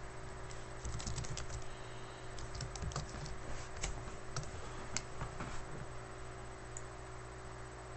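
Typing on a computer keyboard: quick, irregular keystrokes that stop about six seconds in, over a steady low hum.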